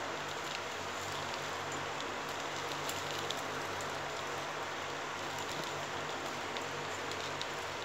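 A steady, even hiss with faint, scattered light ticks of stiff plastic basket wire strands being handled and knotted.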